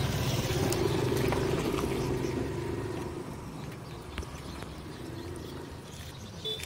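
A motor vehicle's engine running, fading away over the first three seconds until only a low background remains, with a few light clicks.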